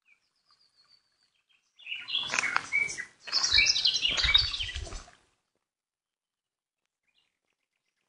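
Songbirds chirping in rapid, overlapping high notes for about three seconds, starting about two seconds in with a brief break in the middle, then cutting off suddenly.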